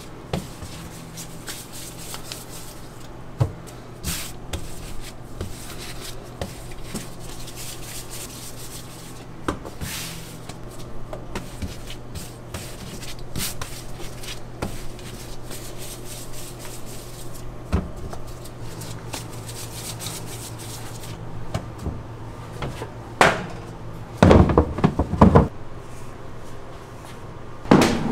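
Kitchen work sounds of hands handling dough and scraping flour across a metal work counter, with scattered knocks and clatters over a steady low appliance hum. A louder run of knocks and clatters comes near the end.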